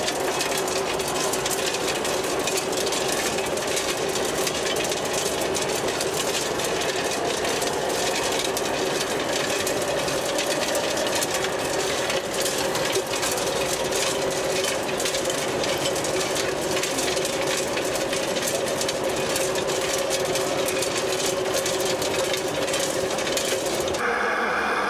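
Radio-controlled Liebherr crawler excavator and a model screening plant working: a steady whine of small motors and hydraulics over a dense, fast rattle of soil and grit on the shaking screen.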